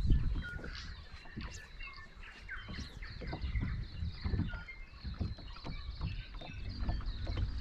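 Birds chirping and whistling in many short notes over a low, uneven rumble of lake water.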